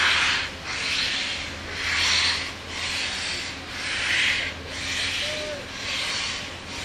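Southern Pacific 4449, a 4-8-4 steam locomotive, chuffing slowly as it starts its train, with a hissing burst of steam about once a second.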